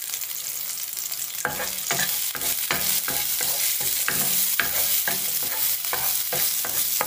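Sliced onion and a garlic clove frying in oil in a frying pan with a steady sizzle. From about a second and a half in, a wooden spatula stirs and scrapes across the pan in quick repeated strokes.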